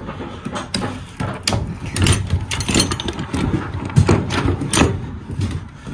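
Orange ratchet tie-down straps on a car being worked loose: irregular metal clacks and rattles of the ratchets and hooks, over a low steady rumble.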